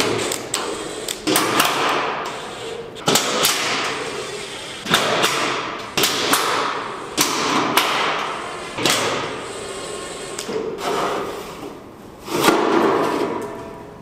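Hammer blows on steel, about ten irregular strikes one to two seconds apart, each ringing out briefly after the hit.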